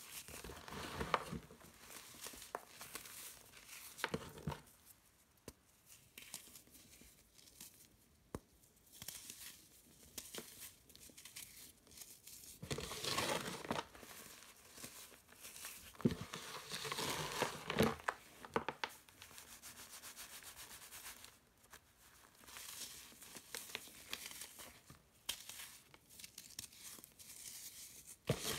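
Hands squeezing and crumbling lumps of dry, reformed sandy dirt, a crunching, gritty crumble with grains falling back onto the pile. The loudest spells come near the start and around the middle, with quieter stretches of small ticks between.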